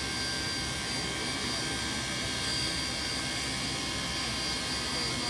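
Steam locomotive 3526, a NSW 35-class 4-6-0, blowing off steam from the top of its boiler: a steady hiss with a few faint high whistling tones in it.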